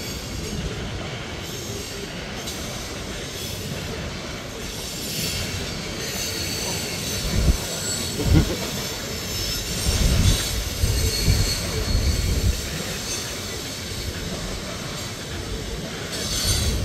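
Freight train of hopper cars rolling past, its steel wheels squealing in several high steady tones, with a few low thumps near the middle.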